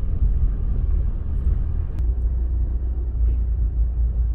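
Car driving, heard from inside the cabin: a steady low rumble of engine and tyres on a wet road, with a single sharp click about two seconds in.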